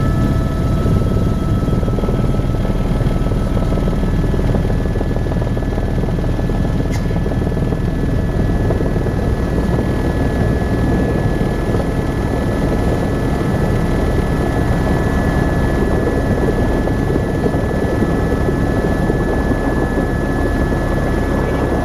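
Tour helicopter in flight: its rotor and engine make a loud, steady drone, with a few faint steady high tones running through it.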